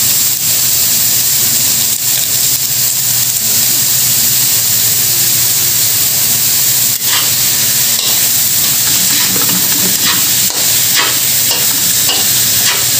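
Finely chopped carrots and green onions sizzling in oil in a wok, stirred and scraped with a metal spatula. A steady frying hiss, with a few sharper scrapes of the spatula in the second half.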